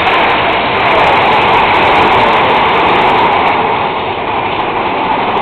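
Big Thunder Mountain Railroad mine-train roller coaster running on its track: a loud, steady rumble and rattle.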